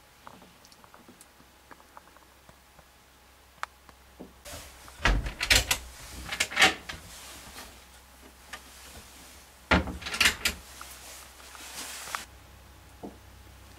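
Wooden cupboard doors and panels in a yacht's mahogany cabin being handled: two bouts of knocks, bumps and clicks, one about five seconds in and one about ten seconds in.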